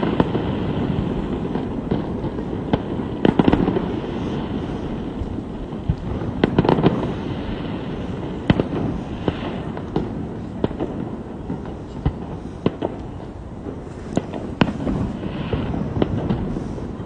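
Fireworks going off: scattered sharp bangs and cracks over a steady low rumble, bunched more thickly near the start, about three seconds in, and around six to seven seconds in.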